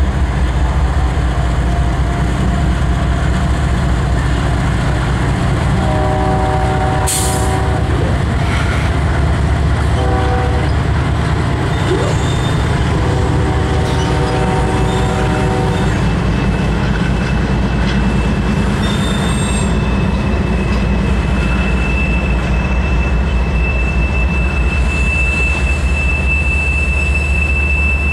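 A loaded CSX freight train rolling past, its locomotives and cars giving a heavy, steady rumble. A train horn sounds several blasts in the first half. From about two-thirds of the way through, a high steady wheel squeal rises as the tank cars work around the curve.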